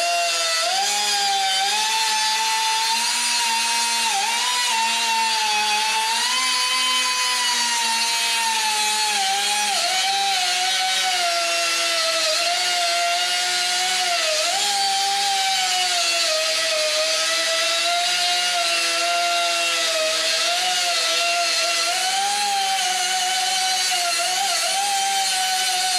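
Power grinder with a cutoff wheel cutting sheet steel, a steady whine whose pitch sags and wavers as the wheel is pressed into the cut, with brief dips a few times.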